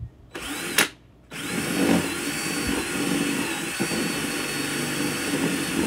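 Cordless drill with a step bit boring into the plastic wall of an ammo can. A brief spin with a click about half a second in, then a steady run of about five seconds with a high motor whine that wavers slightly as the bit cuts.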